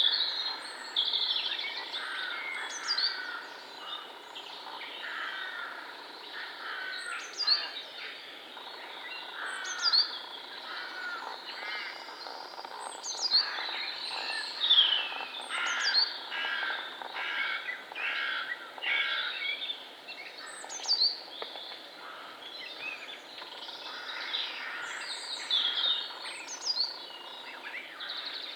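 Several woodland birds singing at once in a dense chorus, with short sharp high notes repeating every second or two over the warbling.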